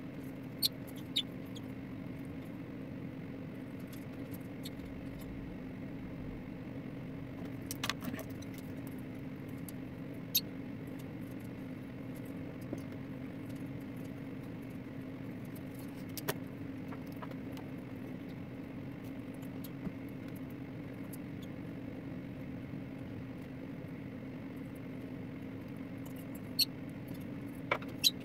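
Steady low hum of a running aquarium that the camera is resting against, with a few brief sharp clicks scattered through.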